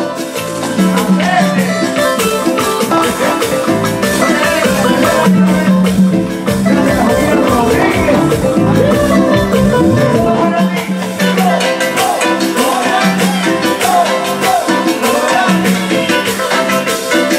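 Live stage band playing upbeat Latin dance music with a steady beat, bass line and shaken percussion, with electric guitar and keyboard in the band.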